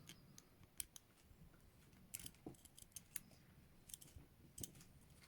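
Faint, scattered metallic clicks and ticks of a lock pick working inside an old ISEO padlock's keyway, about half a dozen spread irregularly over a few seconds.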